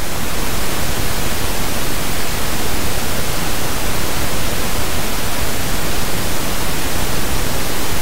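Pink noise test signal: a steady, even hiss across the whole audible range. It is played as a calibration reference for setting the playback level to 60 dB before the fan recordings.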